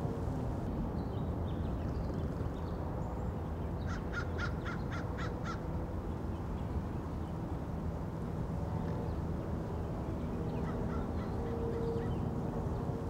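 Residential street ambience picked up by a shotgun microphone: a steady low rumble of the street, with a bird giving a quick run of about seven short, harsh calls about four seconds in.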